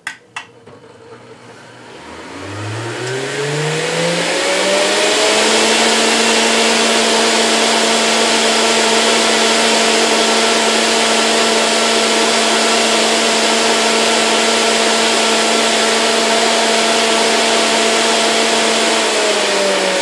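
Breville Juice Fountain Elite high-speed centrifugal juicer switched on with a click, its motor spinning up in a rising whine over a few seconds, then running steadily at full speed with a loud whine and rushing air. Near the end it is switched off and begins to wind down with falling pitch.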